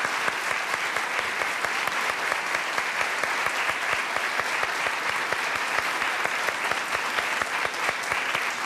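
Large audience applauding steadily, a dense spread of many hands clapping.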